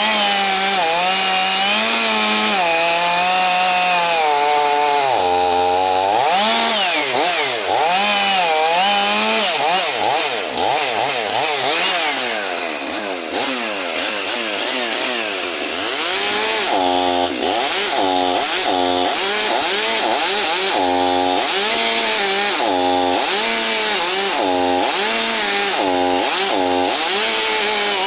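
Stihl MS 500i two-stroke chainsaw ripping lengthwise along the grain of a log. The engine speed repeatedly sags under load and picks back up, often about once a second.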